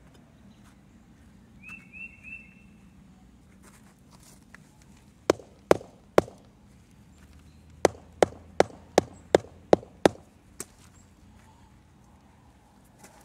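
Rubber mallet tapping a concrete paver to seat it into its sand bed: three taps about half a second apart, a short pause, then seven quicker taps.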